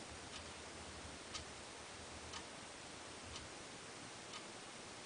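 A clock ticking faintly, one tick a second, over low room hiss.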